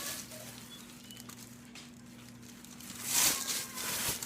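Packaging crinkling and rustling as a handbag is unwrapped, quiet at first and then a louder rustle about three seconds in.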